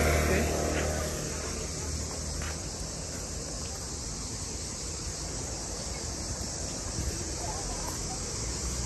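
Steady high-pitched chorus of cicadas in the trees. A low-pitched hum fades out about a second in.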